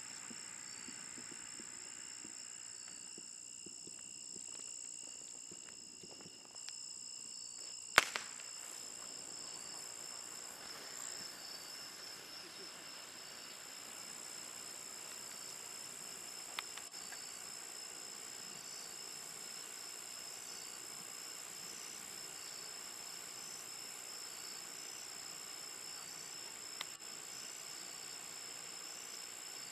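Crickets chirping steadily in high, even pulses, with a single sharp pop about eight seconds in and two faint clicks later on.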